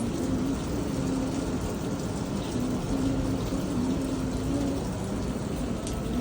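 Rain falling steadily, a continuous rushing hiss, with a low wavering hum that comes and goes.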